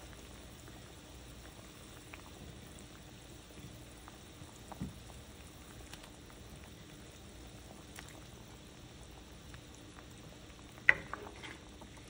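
Curry gravy simmering in a steel kadai with a faint, steady bubbling as pieces of fish are added. A spatula clinks sharply against the pan once near the end, followed by a few lighter knocks.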